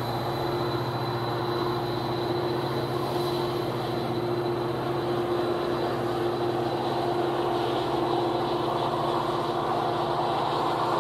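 Metra EMD F40PH diesel-electric locomotive departing and drawing away, its engine a steady drone with a thin high whine over it.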